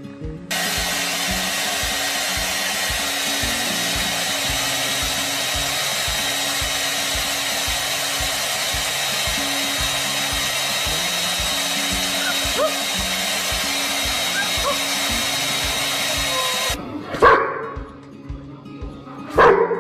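Handheld hair dryer running steadily, a loud hiss with a thin high whine, stopping abruptly about seventeen seconds in. After it, a dog barks loudly a few times.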